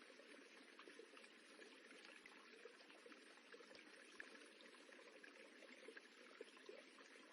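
Faint, steady rippling of running river water, an even wash with small trickling splashes scattered through it.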